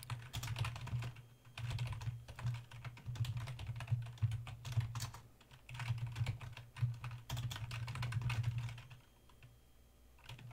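Typing on a computer keyboard: rapid runs of keystrokes with a short pause past the middle, trailing off near the end.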